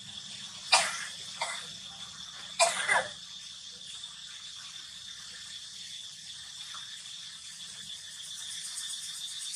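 Three short, sharp cough-like bursts in the first three seconds, the last with a brief falling pitch, over a steady high drone of chirping insects.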